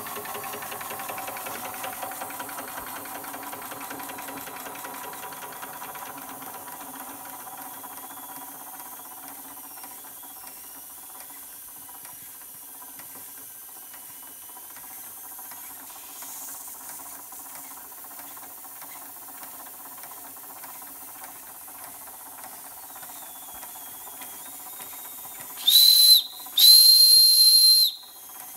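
Josef Falk 143/2 toy steam engine running under steam, with a steady hiss and a fast, even beat. Near the end its steam whistle is blown twice, a short blast and then a longer one, much louder than the running engine.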